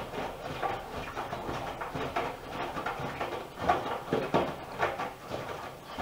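Miele W1 Classic washing machine drum turning in the wash tumble, wet laundry flopping and sloshing inside with irregular soft thuds. Two louder thumps come a little past the middle.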